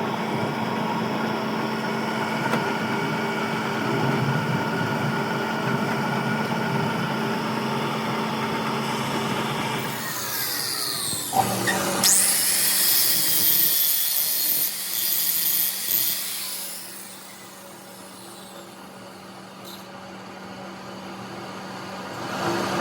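A workshop machine hums steadily. About ten seconds in, a power tool speeds up and works on the steel of the transmission countershaft with a loud, harsh hiss for about five seconds, then winds down and the hum comes back near the end.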